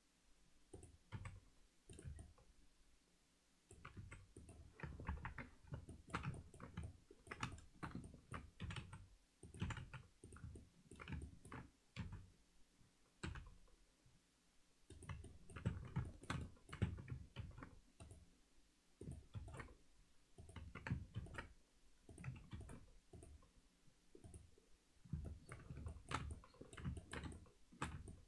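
Quiet computer keyboard and mouse clicking in irregular runs of taps, with short pauses between runs, as shortcuts are pressed while modelling in Blender.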